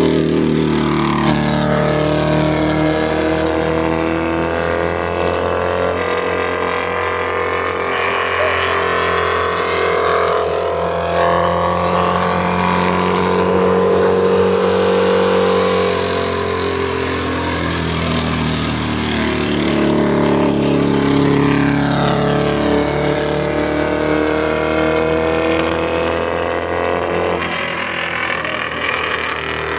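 Dwarf race car's motorcycle engine running hard around the track, its pitch rising and falling in long sweeps every few seconds as the car accelerates and eases off on each part of the lap.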